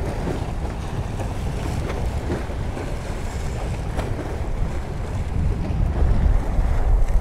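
Wind buffeting the microphone, a low rumble that swells near the end, over waves washing against the rocks of a jetty.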